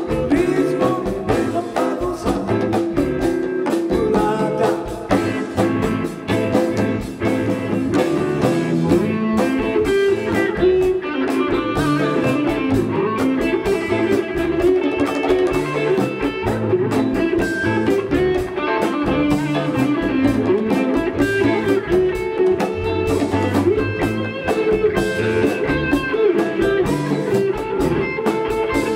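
Live rock band playing: electric guitars leading over bass guitar and a drum kit, at steady full volume.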